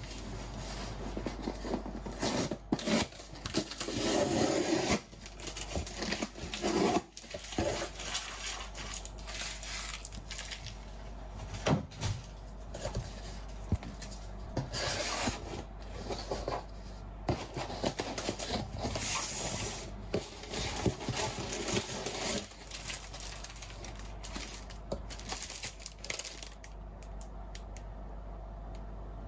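A cardboard box being opened by hand: flaps scraping and bending, paper leaflets rustling, and scattered short knocks as it is handled on the counter.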